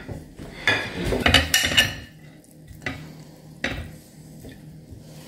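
Metal spoon scraping and clattering in a glass bowl as Brussels sprouts are scooped out onto a plate, followed by two separate clinks of utensil on dish about three and four seconds in.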